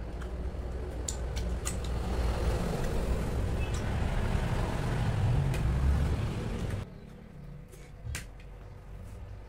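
A low rumbling noise that grows louder for about seven seconds, then cuts off abruptly, leaving a quieter background with a few sharp clicks.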